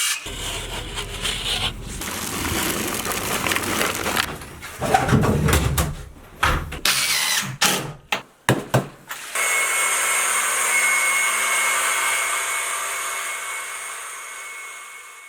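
Power tool noise, drilling and cutting, in choppy snatches with sudden breaks, then a steadier tool whine that fades out near the end.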